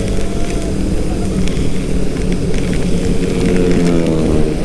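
Yamaha Aerox 155 scooter's single-cylinder engine running at road speed, its hum rising in pitch from about three seconds in as it speeds up, under heavy wind noise.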